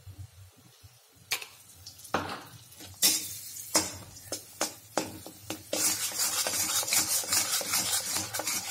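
A steel spatula scraping an iron kadhai while stirring besan roasting in ghee. It starts with separate strokes about a second in, then turns to quick, continuous stirring from about six seconds in.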